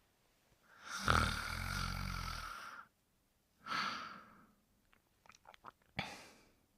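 A sleeper snoring: one long snoring breath with a low rattling buzz about a second in, then a shorter breath near the middle, a few faint quick clicks, and another short breath near the end.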